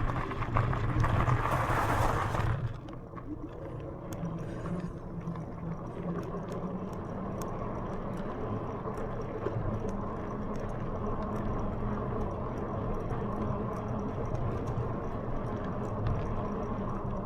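Riding noise from a Lectric XPEAK 2 e-bike climbing a trail. Wind rushes over the microphone for the first two and a half seconds, then gives way to a steadier low hum with faint scattered ticks.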